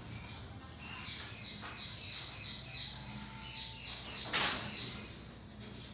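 Indian ringneck parakeets chirping in a quick run of short falling notes, about three a second, then a short loud rustling burst about four seconds in.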